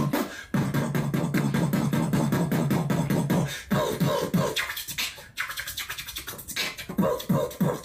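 Human beatboxing: fast mouth-made percussive clicks and snares over a held low bass hum for the first few seconds, then sparser beats with short pitched vocal sounds.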